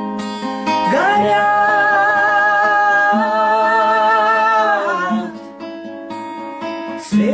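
Song with acoustic guitar accompaniment: about a second in, a voice holds one long note with vibrato for about four seconds, then the guitar plays on alone.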